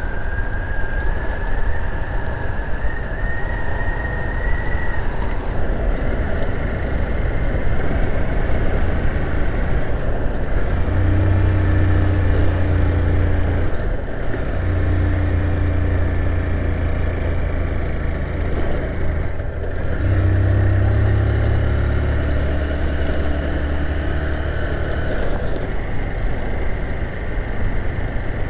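Motorcycle engine running as the bike rides along an unpaved dirt road, over a steady rush of noise. The low engine note grows stronger about eleven seconds in and breaks briefly twice, around fourteen and twenty seconds in.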